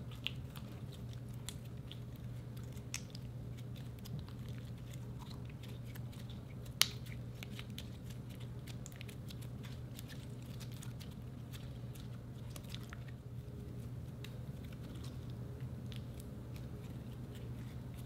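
Slime being kneaded, folded and stretched by hand, giving many small sticky clicks and pops, with one louder pop about seven seconds in.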